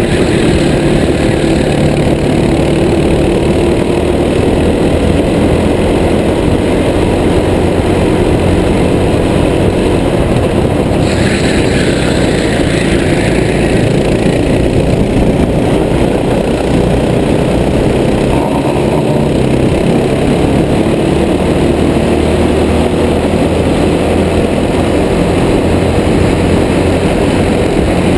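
Racing kart engine running hard, heard from the driver's helmet, its pitch shifting as the kart goes through the corners, under a constant rush of noise. A brighter hiss swells for about three seconds starting about eleven seconds in.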